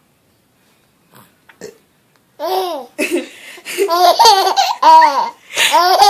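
A baby laughing hard in a string of bursts, each rising and falling in pitch, starting a little over two seconds in after a quiet start with a few faint short sounds.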